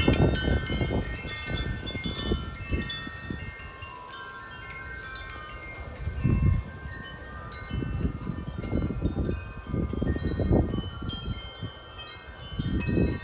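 Wind chimes ringing and clanging wildly in strong storm gusts, many overlapping metal tones at once. Low rumbling surges of wind buffeting the microphone come and go several times.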